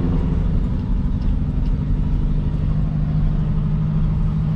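Pickup truck's engine and running noise heard from inside the cab: a steady low drone.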